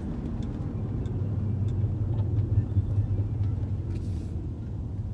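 Car running, a low steady rumble that swells louder around the middle and then eases off.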